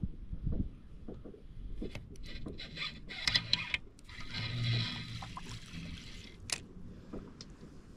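Handling noise on a kayak: water sloshing and scraping against the hull, with a few sharp knocks, busiest in the middle.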